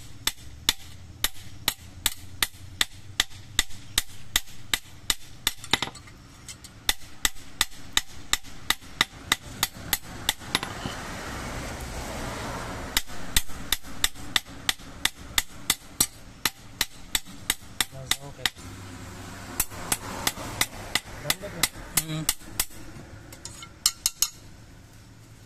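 A small hammer striking a sickle's steel blade on an anvil block in quick, light, even blows, about three or four a second, with a few short pauses. The blade is not glowing, so it is being hammered cold.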